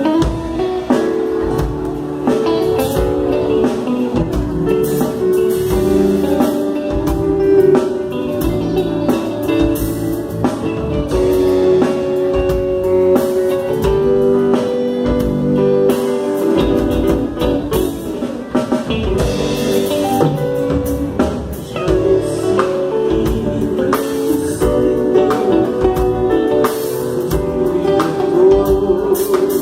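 A band playing during a sound check, with guitar and drum kit.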